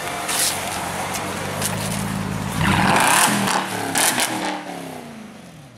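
Supercar engine accelerating hard past the listener: the exhaust note climbs to its loudest about halfway through, then its pitch falls away and fades as the car moves off.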